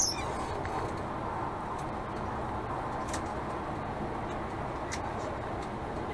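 Steady road and engine noise inside the cabin of a MAN Lion's Coach cruising at motorway speed. A sharp click right at the start, and two faint ticks about three and five seconds in.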